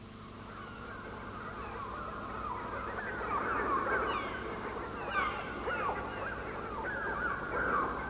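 A swelling din of many bird cries: short screeching, cawing squawks that glide up and down, fading in at the start and growing louder. These are the film soundtrack's electronically made bird sounds, produced on a Mixtur-Trautonium in place of a music score.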